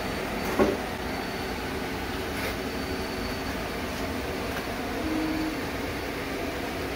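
Steady mechanical hum and noise, with a single sharp knock about half a second in and a brief low tone about five seconds in.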